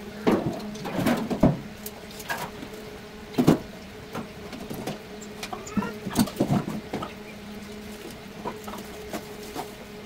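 Irregular scrapes and knocks, loudest in a few clusters, with a few short bird chirps over a steady low hum.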